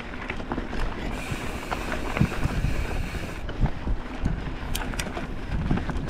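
Wind buffeting the microphone over the rumble of a mountain bike riding a rough dirt trail, with scattered knocks and rattles from the bike.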